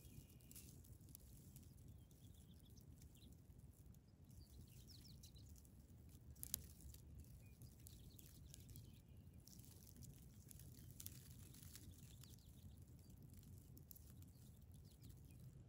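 Near silence: faint outdoor ambience with a low wind rumble, a few faint high chirps, and one sharp click about six and a half seconds in.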